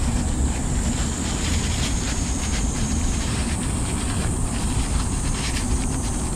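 Paper towel rustling and crinkling as metal drain plugs are wiped clean, over a steady low rumble.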